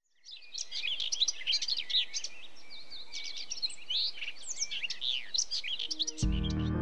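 Several birds chirping and singing, with many short calls overlapping. Near the end, music comes in with low, held notes.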